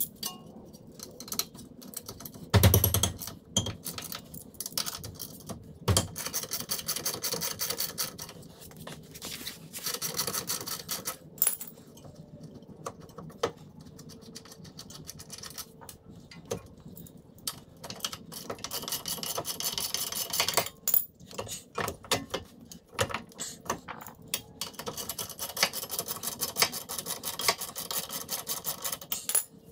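Sped-up hand work on a car's wheel hub: small metal parts clinking, rubbing and scraping, with runs of rapid, evenly spaced clicks. A loud thump comes about two and a half seconds in.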